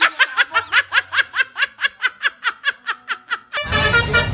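A high-pitched giggle: a quick, even run of short rising "hee" notes, about six a second, that stops abruptly about three and a half seconds in, when louder music with horn tones takes over.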